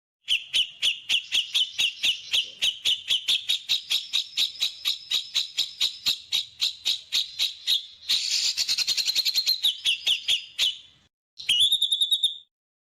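Small songbird singing a fast string of sharp repeated notes, about five a second, that runs into a quicker trill, breaks off, and then gives one short rising call.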